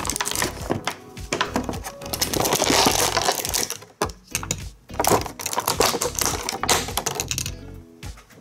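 Clear plastic blister packaging and a small plastic accessory bag crinkling and crackling in quick irregular clicks as an action figure's hand accessories are pulled out, with a low steady backing of music.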